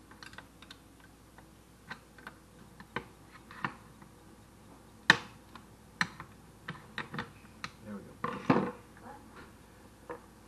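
Scattered metallic clicks and knocks of hand tools, a wrench and then a screwdriver, working on the steel frame of a car's power seat track. The loudest knock comes about halfway, and a brief clatter follows near the end.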